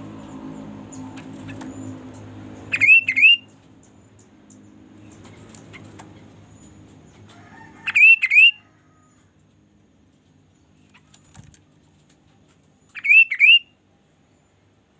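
Chestnut-capped babbler (kaso-kaso) calling three times, about five seconds apart. Each call is a short, loud burst of two or three clear whistled notes.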